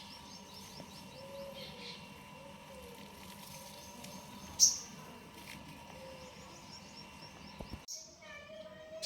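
A bird calling: runs of rapid, evenly spaced high chirps, and one loud, sharp call about halfway through that falls away quickly.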